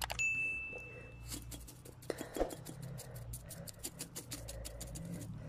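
A mouse click and a short bell ding from a subscribe-button overlay animation, followed by a fast run of small sharp clicks with a single thump in the middle, over a low steady hum.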